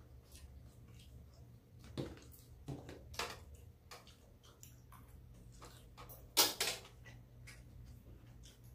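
Two people eating at a table: chewing and mouth sounds with scattered light clicks of chopsticks and spoon, the loudest a short noisy sound a little over six seconds in, over a low steady hum.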